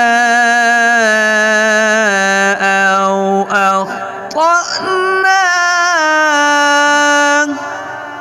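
A man's voice chanting Quranic recitation in slow melodic tajweed style, with long held notes that step down in pitch. A short run of quick syllables comes a little past halfway, then one more long held note stops a little before the end and leaves a fading echo.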